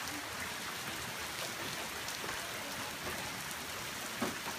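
Steady rain falling, an even hiss of drops on wet ground, with one brief knock near the end.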